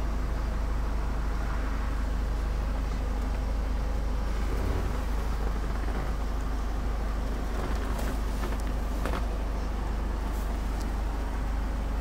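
Steady low hum of a Ford Kuga's engine idling, heard from inside the cabin, with a few light clicks about two-thirds of the way through.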